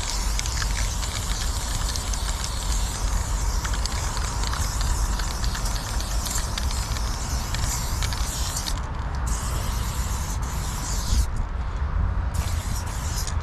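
Aerosol spray paint can hissing as it sprays paint in long, continuous strokes, cutting out briefly twice in the last few seconds. A steady low rumble runs underneath.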